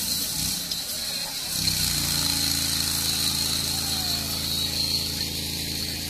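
Portable fire pump's small engine running, settling into a steady, even pitch about a second and a half in as the pump takes up its work during a fire attack.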